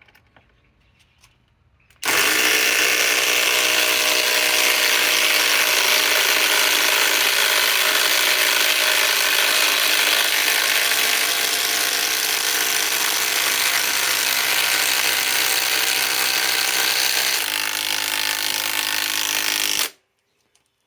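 Cordless impact drivers (a SKIL PWR CORE 20 and a RYOBI 4-mode) hammering steadily under load as they drive 5-inch PowerLag screws into wood. The sound changes slightly near the end and then stops suddenly as the screws seat.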